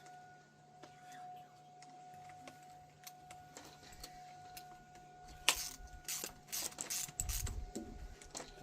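Scattered light clicks and metallic clinks of small parts and tools being handled during string-trimmer reassembly, busier and louder over the last three seconds, with a low bump near the end. A faint steady high hum runs underneath.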